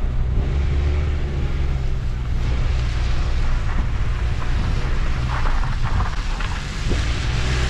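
Steady rumble and hiss of a car on the move, heard from inside, loud and even throughout with a brief dip a couple of seconds in.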